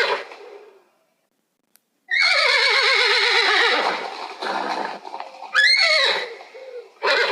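Horse whinnying: a long quavering whinny that falls in pitch, ending in a breathy snort, then a shorter whinny that rises and falls, with brief calls at the start and near the end, separated by abrupt silent gaps.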